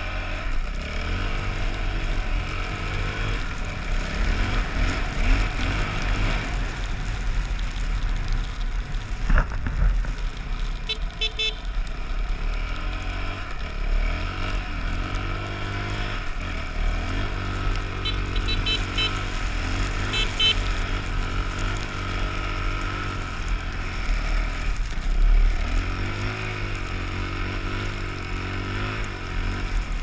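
Dirt bike engine running under load in deep snow, its revs rising and falling again and again as the throttle is worked. There is a sharp knock about nine seconds in.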